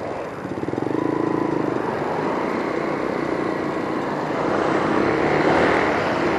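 Busy highway traffic: passing cars and motorcycles, engines and tyre noise, with wind on the microphone. A vehicle's fast engine pulsing stands out about a second in, and the traffic swells near the end.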